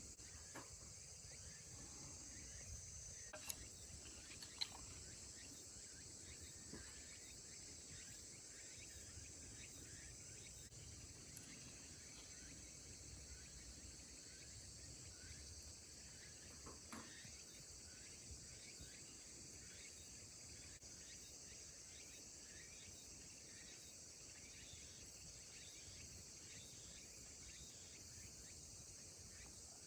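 Steady high chorus of insects, crickets among them, with two sharp clicks about four seconds in.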